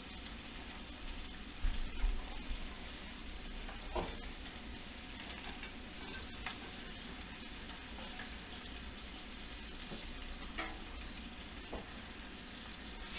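Strips of bacon sizzling steadily in a frying pan, with a few faint knocks about two and four seconds in.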